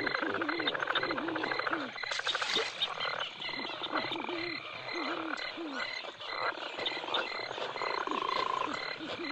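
Bayou ambience sound effects from the Pirates of the Caribbean ride: frogs croak in runs of short calls that rise and fall in pitch, over a dense, steady chorus of chirping insects.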